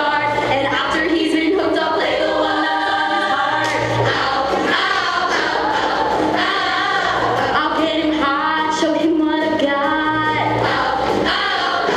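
Show choir singing in full harmony, many voices together, at a steady loud level, with a low sustained note recurring beneath the voices.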